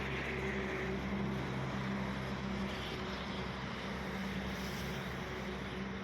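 Large engine running steadily, a low hum with a constant pitch and no change in speed.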